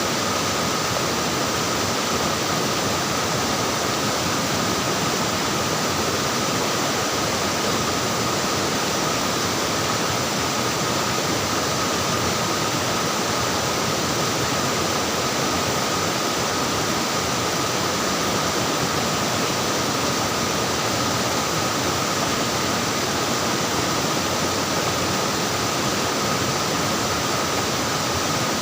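Water flowing and splashing steadily in a stream, a constant even rush with no change.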